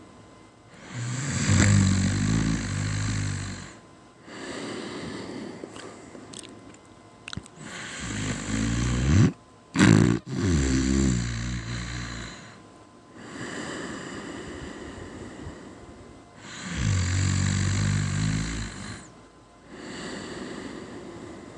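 Snoring in three loud snores about eight seconds apart, each lasting a couple of seconds, with softer breaths between them. The middle snore breaks off briefly and catches again.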